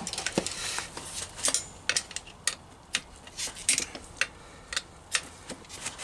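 Sharp metal clicks and clinks from a spanner being worked on the nut of a Ford Focus MK2 rear shock absorber, the shock held with locking pliers. The clicks come singly and unevenly, about one or two a second.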